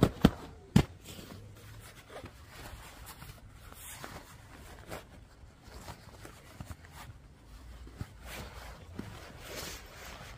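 Synthetic sleeping bag rustling and swishing as it is handled and stuffed into its stuff sack, with three sharp knocks in the first second.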